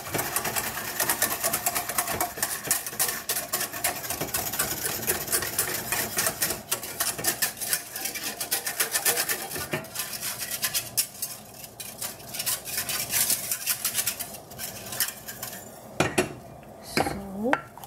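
Milk heating in a stainless steel saucepan, crackling and bubbling as a dense stream of fine rapid ticks that thins out toward the end. Near the end there are a few louder knocks.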